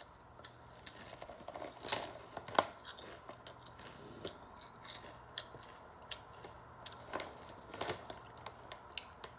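Potato chips being crunched and chewed: Calbee seaweed-salt chips breaking between the teeth in irregular crisp crunches, the sharpest about two and a half seconds in.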